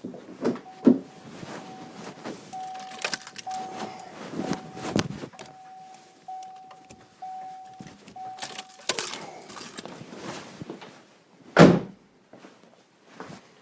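Steel tools clinking and knocking against a Subaru's front suspension parts while a new ball joint is worked up into place, with a steady high tone heard in short pieces for most of the time. Near the end comes one loud metal knock, the loudest sound here.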